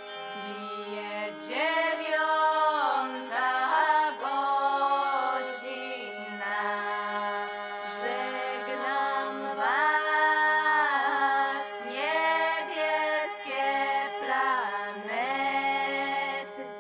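Music: a voice singing long, wavering phrases over a steady held drone.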